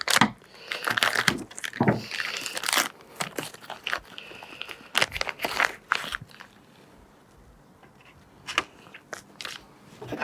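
Plastic parts packaging crinkling and tearing as new parts are unwrapped and handled, in irregular spurts over the first six seconds, then only a few light clicks.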